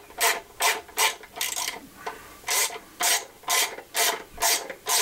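Hand ratchet wrench run down on intake manifold bolts, each swing of the handle giving a rasping run of pawl clicks, about two to three strokes a second. There is a brief pause about two seconds in.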